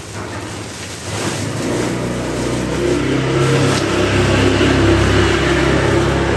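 A motor vehicle engine running steadily, its hum building about a second in and holding, over the rustle of a woven plastic sack as a pillow is pulled out of it.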